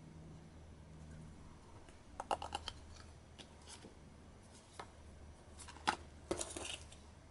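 Playing cards being handled by hand: several short clusters of crisp clicks and snaps, the loudest a little before six seconds in, over a faint steady low hum.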